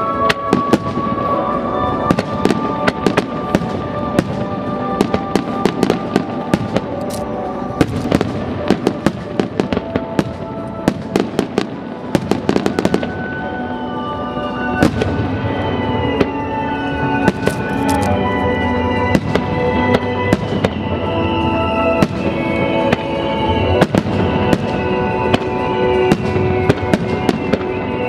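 Fireworks display: aerial shells bursting in many sharp bangs and crackles over loud accompanying show music. From about halfway through, a repeating falling high tone rides over the music.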